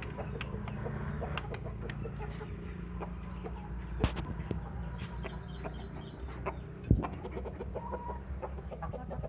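Chickens clucking and pecking about in a coop, with many small clicks. A knock sounds about four seconds in and a louder thump near seven seconds.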